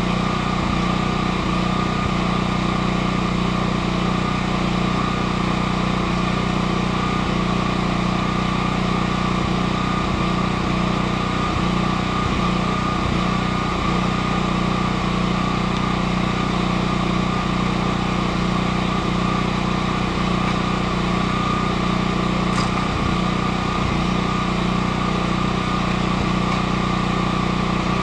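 Steady machine hum that runs on without a break, with a couple of faint ticks near the end.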